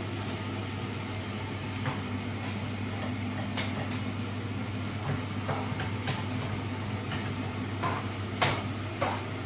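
Metal spatula stirring and scraping in a kadhai on a gas stove, with scattered clinks and knocks against the pan, the loudest about eight and a half seconds in. A steady low hum runs underneath.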